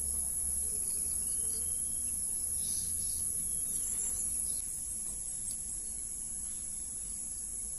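Steady high-pitched chorus of field insects, with a low rumble underneath that eases off about halfway through.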